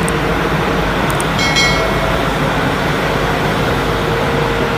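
Hino 500 street sweeper truck working at kerbside, its engine and sweeping gear running in a steady loud rush with a faint hum under it. A brief high squeal sounds about a second and a half in.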